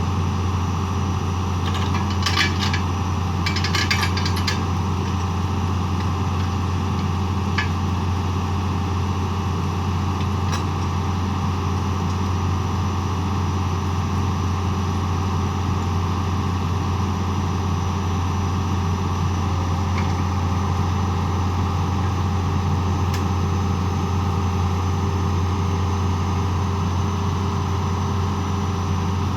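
Small engine running steadily at a constant speed. Metal tools clink in two short bursts about two and four seconds in, with a few single sharp ticks later.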